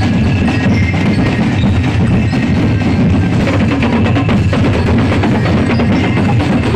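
Loud music with busy percussion: a steady run of quick knocking and drum strokes.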